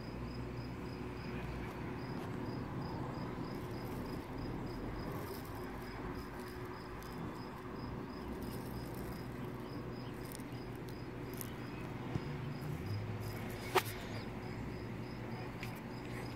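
Chirping insect: a high chirp repeating evenly a few times a second over a low steady hum, with one sharp click near the end.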